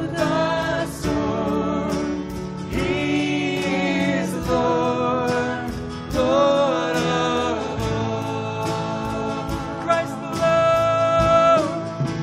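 Group of voices singing a worship song, holding long sustained notes.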